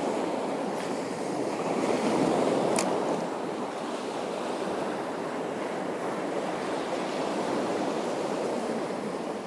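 Waves washing on the shore with wind, a steady rush that swells briefly about two seconds in.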